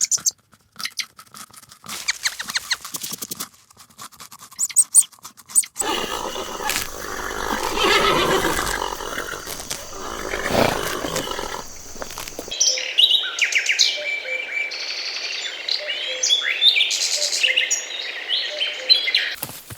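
Farm animal sounds from a run of different clips: short scattered noises at first, then a busier, noisier stretch, and from a little past halfway many high, quick bird chirps.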